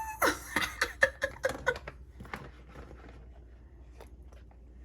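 Hard cast ResinCrete pieces being popped out of flexible silicone molds: a quick run of clicks, taps and short squeaks in the first two seconds, then quieter scattered handling ticks.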